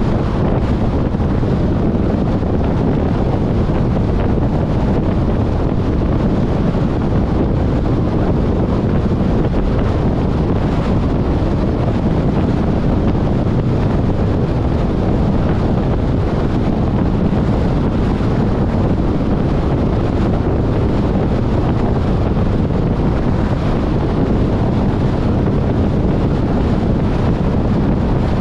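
Steady wind and road noise from a car driving at highway speed: a constant low rumble with no breaks or changes.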